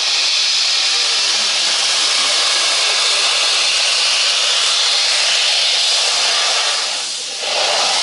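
Class 52 (Kriegslok) steam locomotive blowing off steam from low at the front by the cylinders: a loud, steady hiss that dips briefly about seven seconds in, then comes back full.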